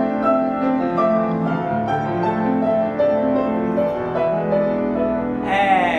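Slow piano music, held notes changing about every half second to second. A voice comes in briefly near the end.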